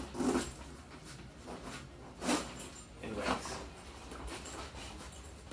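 A few brief soft knocks and rustles of things being handled, about a second or two apart.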